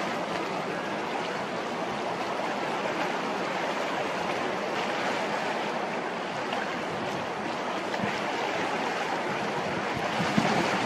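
Steady rushing noise of choppy harbour water with wind on the microphone, and a few louder gusty bumps near the end.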